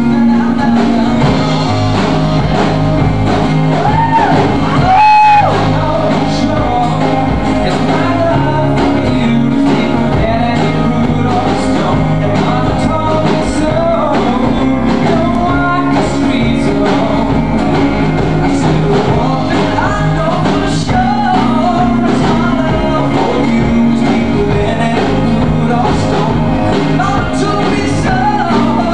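Male vocals singing a song live over instrumental accompaniment, with a loud held high note about five seconds in.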